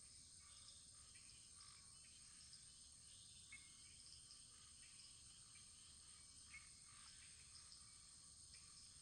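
Very faint wood fire crackling, with scattered soft pops over a steady hiss.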